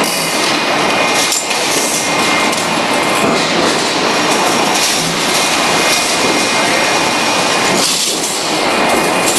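Loud, steady machinery noise of an industrial hall: a dense, even hiss and rumble with faint steady tones, and no distinct strokes or events.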